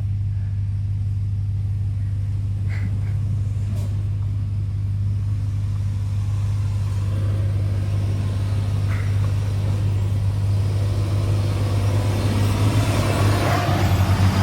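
A pickup truck engine idling steadily, with a few light knocks. Near the end a second truck's engine and tyres grow steadily louder as it climbs nearer over the rocky trail.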